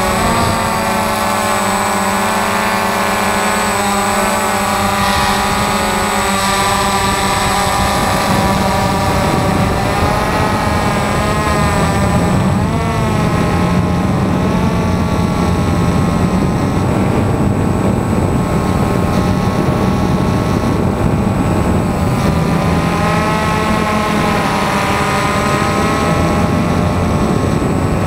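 DJI Phantom FC40 quadcopter's motors and propellers whining in flight, heard close up from the camera on board. Several tones waver up and down in pitch as the motors change speed, over a steady high-pitched tone.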